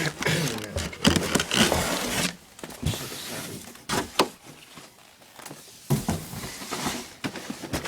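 Cardboard airsoft-gun box being handled and turned over: rustling and scraping, strongest in the first couple of seconds, then several sharp knocks and taps.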